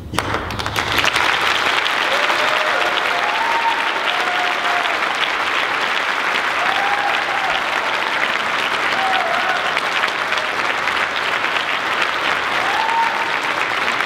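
Audience applauding, starting suddenly right as the choir's final chord stops and holding steady, with a few cheering whoops over the clapping.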